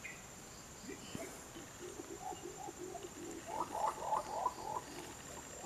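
A series of short, low animal calls, building to a quicker, louder burst of calls about three and a half seconds in, over a steady high-pitched tone.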